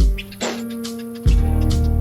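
Music: sustained instrument notes over a drum beat, with a deep bass hit at the start and another about 1.3 seconds in.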